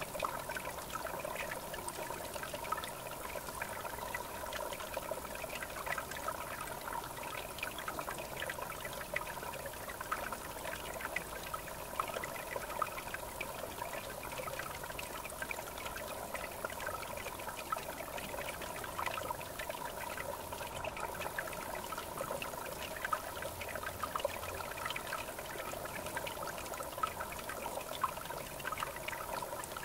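River water trickling and babbling steadily, a continuous rush dotted with many small splashes.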